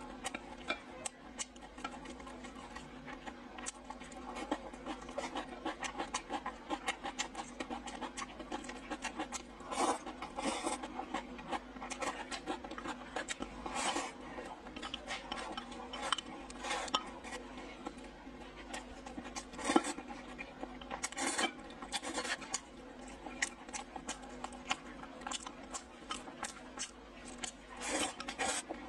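A person eating stewed pork ribs with glass noodles and rice close to the microphone: steady chewing and many small wet mouth clicks, with chopsticks clicking on the bowl and plate. Several louder noisy bursts stand out, about ten, fourteen and twenty seconds in.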